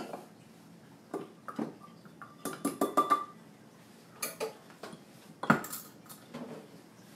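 Kitchen dishes and utensils being handled: a string of separate clinks and knocks, a quick cluster with a brief ringing clink about three seconds in, and the loudest knock about five and a half seconds in.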